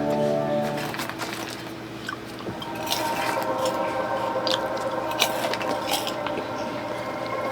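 Dishes and cutlery clinking at a meal, with a run of sharp clinks from about three seconds in.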